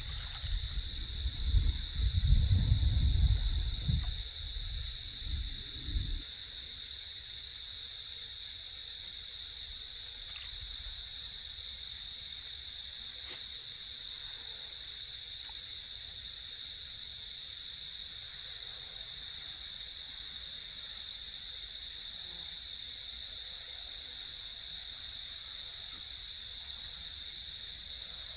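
Insects calling: a steady high-pitched trill, joined about six seconds in by a regular high chirp repeating about twice a second. A low rumble covers the first several seconds.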